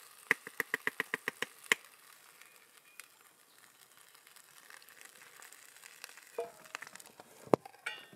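A wooden spoon knocking against a camp cook pot: a quick run of about ten even taps over the first second and a half. A few metal clinks of pots being handled come near the end.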